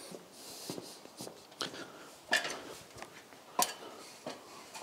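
A few scattered knocks and clicks from an aluminium stepladder being handled, over faint room noise.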